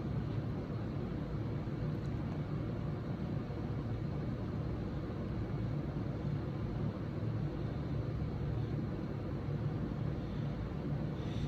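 Steady low-pitched rumbling background noise, even throughout, with no distinct events.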